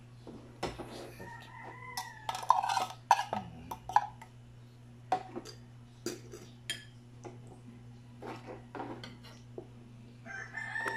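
A metal fork clinks and scrapes against a bowl as canned corned beef is mashed and mixed, in sharp irregular clicks. A rooster crows in the background around two seconds in and again near the end.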